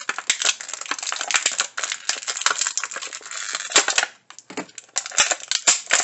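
Clear plastic toy packaging crinkling and crackling as hands work to open it and get a mini figure out. Dense, rapid crackles with a short lull about four seconds in.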